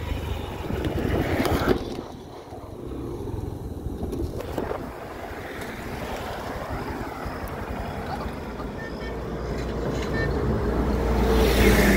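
Road vehicle noise with a low wind rumble and no clear engine note. It drops about two seconds in and grows steadily louder toward the end.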